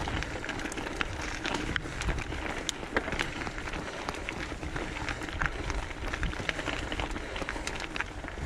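Mountain bike tyres rolling over a loose gravel trail, a steady crunching rattle with many small sharp clicks from stones and the bike.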